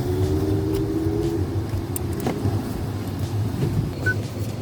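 Car running at low speed with a steady low rumble.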